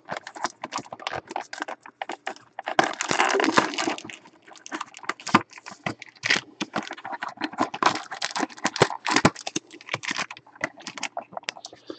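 Foil-wrapped trading-card packs and their cardboard box being handled: crinkling and rustling of foil and card with many small taps and scrapes as packs are pulled out and set down. The rustling is louder about three seconds in and again near the eight-second mark.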